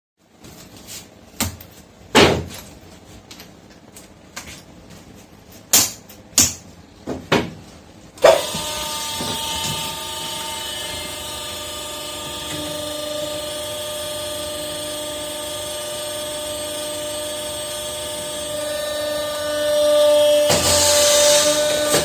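Several sharp clicks and knocks of metal parts being handled. About eight seconds in, the electric motor and hydraulic pump of a Techmaflex hose crimping machine start and run steadily with a whining hum. Near the end it grows louder and a strong hiss joins as the machine comes under load.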